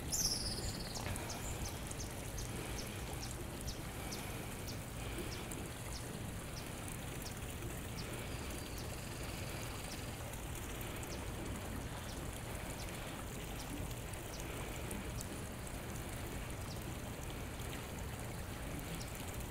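Steady trickling of running water, with faint high ticks about twice a second through the first half and a short falling high chirp right at the start.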